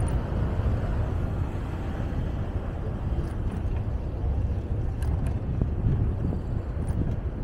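City street sound picked up from a moving bicycle: a steady low rumble of wind on the microphone mixed with passing traffic, with a few faint ticks.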